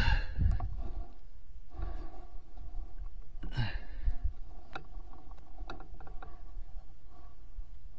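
Low wind rumble on the microphone with two breathy exhales, one at the start and one about three and a half seconds in, and a few faint clicks of rifle and tripod handling as the rifle is panned across the terrain. No shot is fired.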